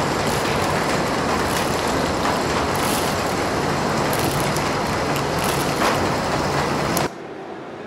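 Small battery-powered DC gear motor driving a cardboard conveyor belt, with buckwheat grains rattling off the belt into a cardboard hopper, running steadily. The noise cuts off suddenly about seven seconds in.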